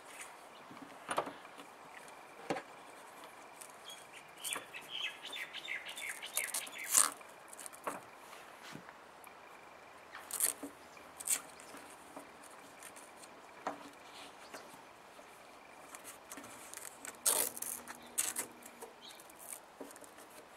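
Hands handling a split rubber heater hose and strap on a bonnet gas strut: scattered rubbing and clicks, with a few sharper clicks. A bird gives a short run of quick high chirps about five seconds in.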